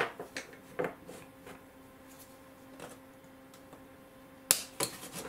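Light clicks and taps of a craft knife, vernier caliper and thin styrene strip on a cutting mat as the strip is cut to length. A sharper cluster of clicks comes about four and a half seconds in, over a faint steady hum.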